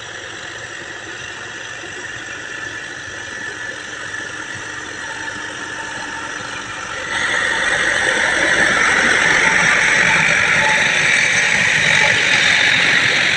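Tractor engine running under load while a rotavator churns through flooded mud, puddling the field for paddy. The sound gets sharply louder about seven seconds in as the tractor comes right up close.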